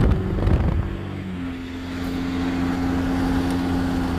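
Cummins turbo-diesel pickup engine pulling under part throttle, heard from inside the cab. Its note drops and settles about a second in, then holds steady. The turbo has its inlet baffle ring removed, which lets more turbo whistle through under boost.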